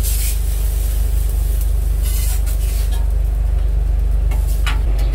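A food truck's running machinery makes a loud, steady, low drone that shifts slightly just before the end. A few light clicks and scrapes come from a serving utensil working in a plastic takeout container.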